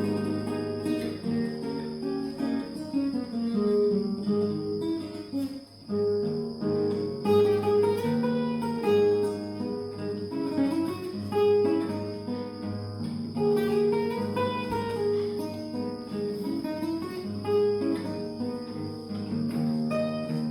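Spanish guitar playing a plucked melody over low bass notes.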